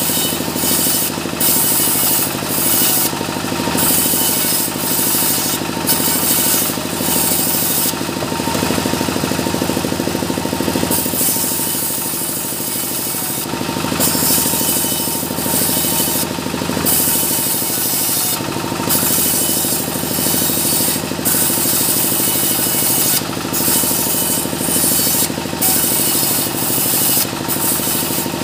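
Sawmill saw ripping small mahogany boards into battens: the motor runs on steadily while the blade hisses through the wood, with short breaks in the cutting sound between one pass and the next.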